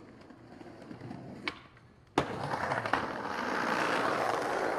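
Skateboard landing with a sharp slap about two seconds in, after a light click, then the urethane wheels rolling loudly and steadily across rough concrete.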